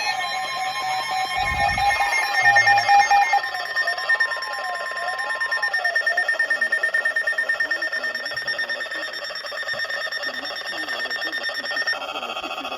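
Weather radios sounding their alert alarms at once for a flash flood warning: a steady alert tone that stops about five to six seconds in, a warbling tone that sweeps up and down about once a second, and another steady higher tone that runs on until shortly before the end. A thump about a second and a half in.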